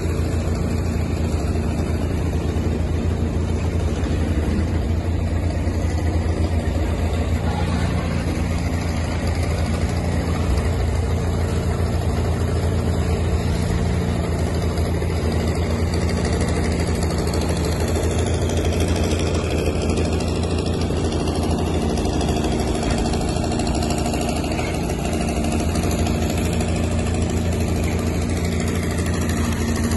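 Caterpillar D6 9U crawler tractor's diesel engine running steadily under load as it tows a train of cabooses and freight sleighs over snow.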